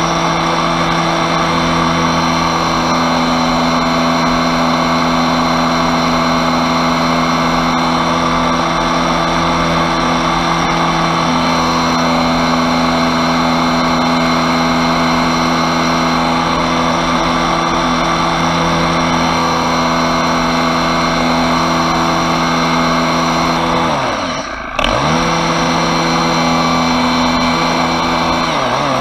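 Pressure washer running steadily, driving a rotary surface cleaner that is pushed over block paving. About 24 seconds in, its pitch and level dip sharply and recover within a second, and another dip begins near the end.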